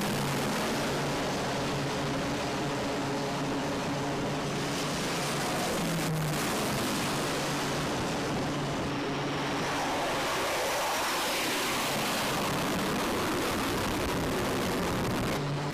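Twin turboprop engines of an E-2 Hawkeye running with a steady drone over heavy wind rush on the flight deck, just after the aircraft's arrested landing. About six seconds in the engine drone fades and the wind rush swells for several seconds.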